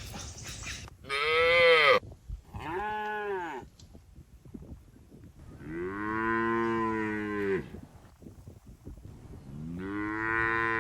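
Cattle mooing: four separate moos, each rising and then falling in pitch. The first, about a second in, is the loudest and highest, and the third is the longest.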